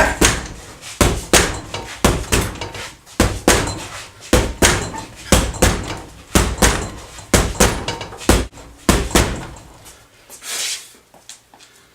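Punches landing on a refrigerator weighted inside with rocks, cement and lead, used as a heavy bag. The blows come about two to three a second, often in quick pairs, and stop about ten seconds in.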